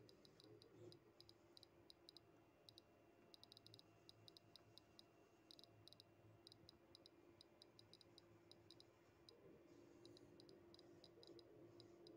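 Dosimeter's Geiger–Müller tube clicking at random, irregular intervals, now and then bunching into quick runs; each click is one detected ionising particle. A faint steady hum sits underneath.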